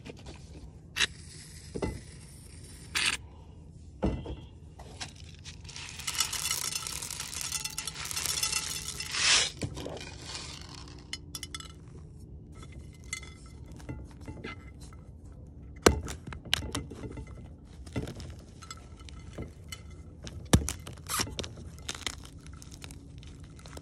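Blocks of gym chalk being crushed and crumbled. Sharp cracks and snaps come scattered throughout, with a longer stretch of dense crumbling from about six to ten seconds in.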